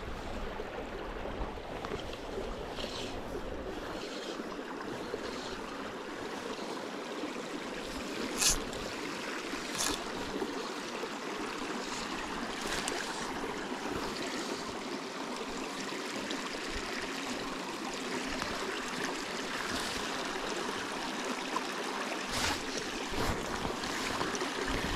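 Small, shallow mountain creek flowing steadily over rocks and gravel, with a few brief clicks, the loudest about eight seconds in.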